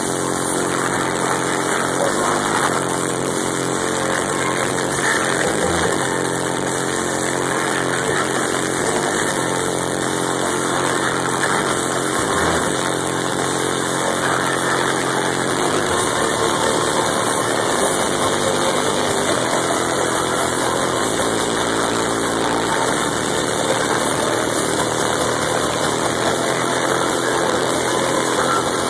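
Loud electronic dance music from a live DJ set played through a concert PA, with sustained synth tones that change pitch about halfway through.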